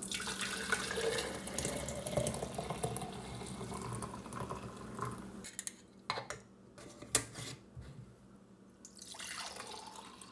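Fresh green juice being poured into a glass, a steady pour whose pitch rises as the glass fills. Then a few sharp knocks, and a second, shorter pour near the end.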